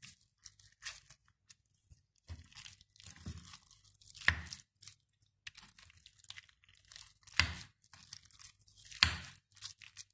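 A metal spoon stirring and mashing a wet minced-meat mixture of egg, cheese and spices in a bowl, with irregular squelching and scraping. Three louder knocks come about four, seven and nine seconds in.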